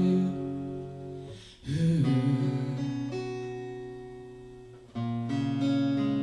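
Instrumental passage of a song: acoustic guitar chords strummed and left ringing, each slowly fading before a new chord is struck, about two seconds in and again near the end.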